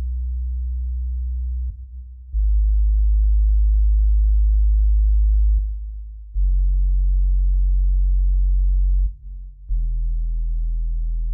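Very deep, pure sub-bass tones from the EERIE 2 Kontakt sample library, played as four held notes of a few seconds each with short breaks between them.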